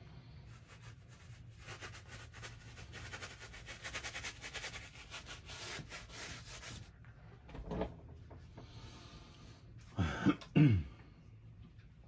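Flat bristle brush scrubbing oil paint onto stretched canvas in quick back-and-forth strokes for about the first seven seconds. Near the end a man coughs twice; the coughs are the loudest sounds.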